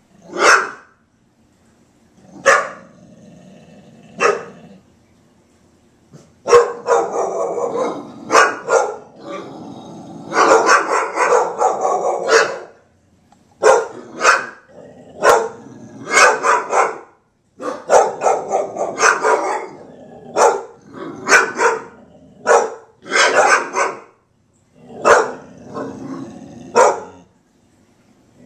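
Two dogs barking at something outside a window: a few single barks at first, then long runs of rapid, overlapping barking with short pauses between them, and low growls in some of the gaps.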